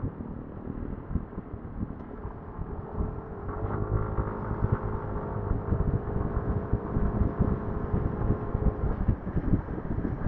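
Wind buffeting on an action-camera microphone while riding a motorcycle through road traffic. From about three seconds in a steady engine drone joins it, stepping up slightly in pitch at first and fading out near the end.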